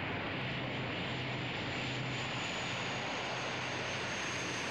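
Lockheed C-130J Hercules coming in to land, its four Rolls-Royce AE 2100 turboprops and six-bladed propellers running as a steady drone with a thin high turbine whine that sinks slowly in pitch.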